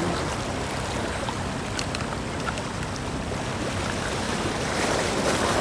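Seaside ambience: sea water washing against shoreline rocks, with wind on the microphone and a low steady hum underneath.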